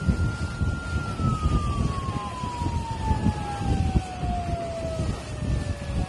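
A siren holds one steady pitch, then from about a second in falls slowly and smoothly in pitch as it winds down. Loud low rumbling and wind noise run underneath.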